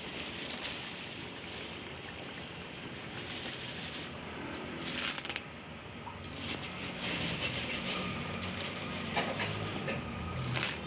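Red chili sauce sizzling and bubbling in an aluminium wok, a steady hiss. About five seconds in, a handful of cockles tumbles into the wok with a clatter of shells, and a few scattered clicks of shell follow.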